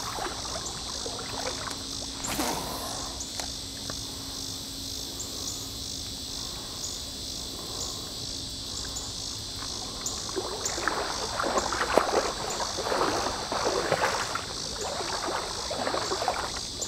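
Steady chorus of insects chirping in rapid pulses, high-pitched. From about ten seconds in, water sloshes and splashes in irregular bursts for several seconds.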